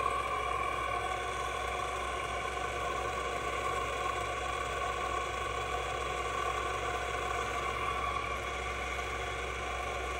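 Seong Kwang SKR-1000 radial arm drill running with its spindle power-feeding down at the minimum feed rate. The motor and drill-head gearing give a steady hum with several steady whining tones.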